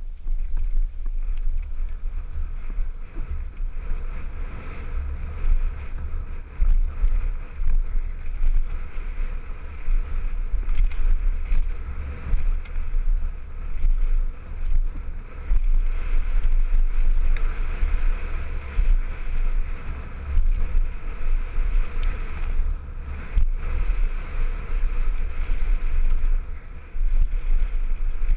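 Heavy, gusting wind rumble on a helmet camera's microphone as a downhill mountain bike runs fast down a dirt trail, with a steady hiss of tyre and trail noise and scattered small knocks from the bike.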